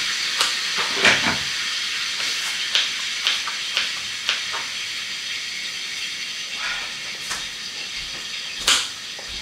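Cutlets frying in a pan: a steady sizzle with scattered crackles and pops that slowly dies down, with a sharper click near the end.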